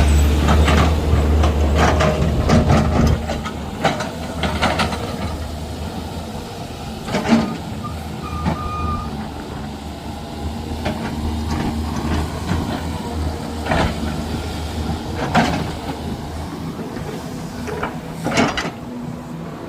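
Heavy diesel engine running with a deep rumble that fades after about three seconds, followed by a lower mechanical background broken by scattered sharp knocks a few seconds apart.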